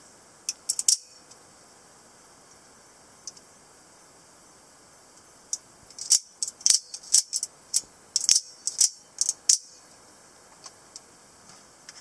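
Spring-driven blade of an out-the-front automatic knife snapping out and back, sharp metallic clicks: a few about half a second in, then a quick run of a dozen or so from about six to nine and a half seconds in.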